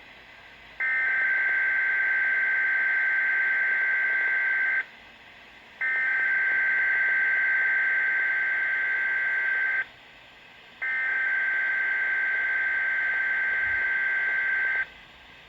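Weather Radio Canada's SAME digital alert header, a harsh two-tone buzzing data screech sent three times, each burst about four seconds long with about a second of radio hiss between. It is the coded header of the required weekly test that sets off alert-equipped weather radios.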